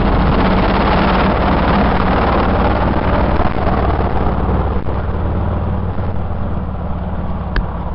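Ducati DesertX's 937 cc L-twin engine running steadily with a dense low throb. It eases off slightly near the end.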